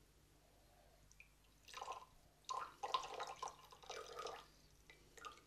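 Liquid poured into a cup, faint, beginning about two seconds in and running in two stretches, the second longer.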